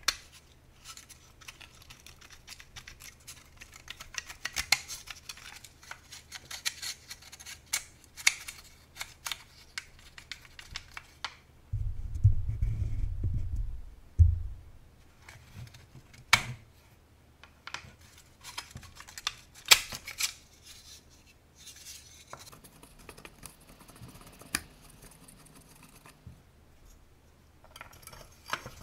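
Parts of a dismantled Bosch PBS 75 belt sander being handled: many small metallic clicks and scrapes as the housing is turned over and shifted on a wooden bench. A louder low rumble lasts about two seconds midway.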